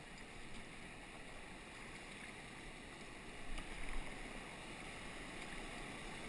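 Steady rushing of river rapids ahead. A couple of louder paddle splashes come about three and a half and four seconds in.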